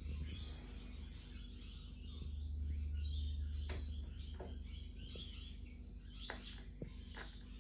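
Faint scattered clicks from a salvaged TV speaker as its wires touch a AAA battery, about five in the second half, over a steady low hum that swells briefly a few seconds in. Faint bird chirps sound in the background.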